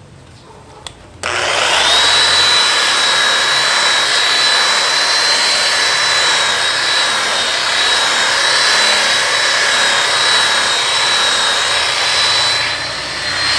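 Electric rotary polisher with a wool pad switched on about a second in, its motor spinning up fast to a steady high whine as the pad buffs polishing compound on a plastic headlight lens. The level dips briefly near the end.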